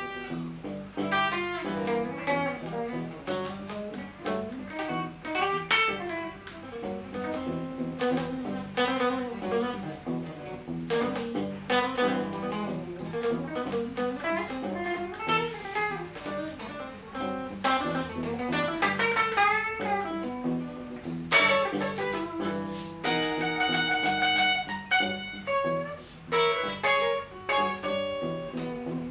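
White Stratocaster-style electric guitar played, a dense run of quickly picked notes and chords.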